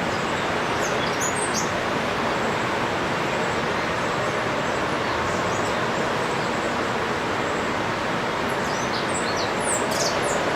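Small birds chirping in short high calls, a couple about a second in and a cluster near the end, over a steady rushing background noise. The recording runs at one and a half times normal speed.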